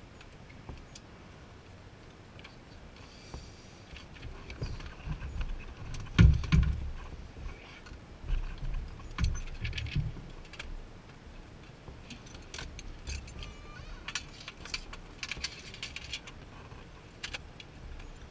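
Scattered clicks, light metallic rattles and dull thumps of gear being handled in a small plane's cockpit with the engine shut down. The loudest thump comes about six seconds in, and a cluster of clicks and rattles comes near the end.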